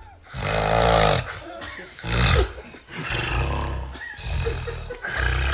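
A person snoring loudly, several long, rough snores in a row with short pauses between them.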